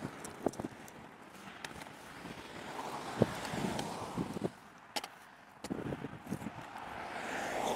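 Fast road traffic, cars passing at speed with tyre and engine noise that swells and fades, loudest a little after three seconds in and again near the end. A few short knocks sound close by.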